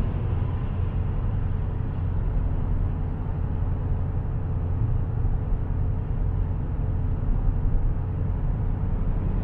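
Dodge Challenger cruising at highway speed, heard from inside the cabin: a steady low rumble of engine and tyre noise with a faint constant hum above it.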